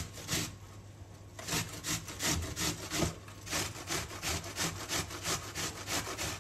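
Onion being grated on a metal box grater: quick rasping strokes, about four a second, with a short pause about a second in.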